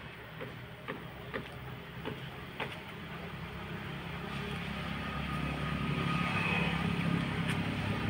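Motor vehicle engine rumble growing steadily louder as it approaches, with a few light clicks in the first three seconds.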